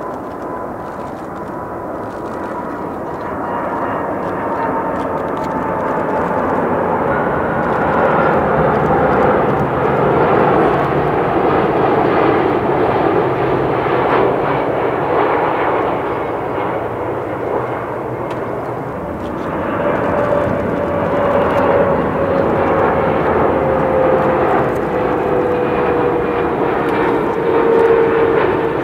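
Jet airliner engines passing low, a broad rushing noise with a thin whine that slowly falls in pitch as the sound grows louder. About two-thirds of the way through the noise dips, and a second airliner follows with its own falling whine.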